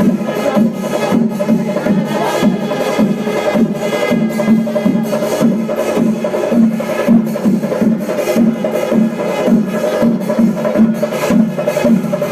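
Music driven by fast, steady percussion, with dense repeated drum strokes and a constant pitched drone underneath.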